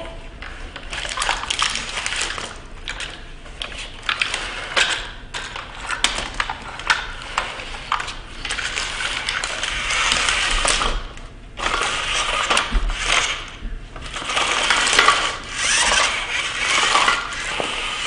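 Foil-wrapped mini candy bars crinkling and clattering as plastic toy construction vehicles are pushed through them by hand, with many small plastic clicks and knocks. The rustling gets busier about halfway through.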